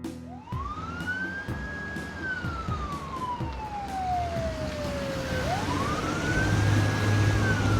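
Sheriff's car siren wailing: a slow wail that climbs, holds at the top, then slides down over a few seconds, and starts a second rise about five and a half seconds in.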